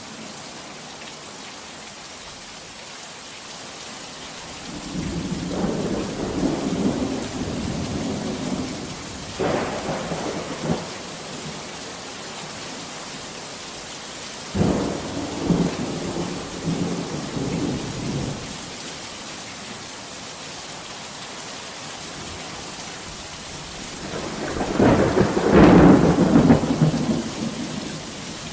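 Steady heavy rain with three rolls of thunder. The first begins about five seconds in, the second starts with a sudden crack about halfway through, and the loudest comes near the end.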